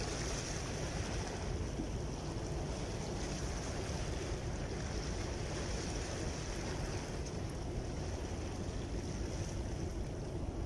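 Steady seaside wind and the gentle wash of small waves against breakwater rocks, with no distinct events.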